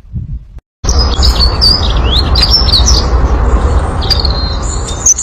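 Small birds chirping and twittering in quick, overlapping high notes, some sliding up or down, over a steady low rumble. They start abruptly about a second in, after a brief silent gap.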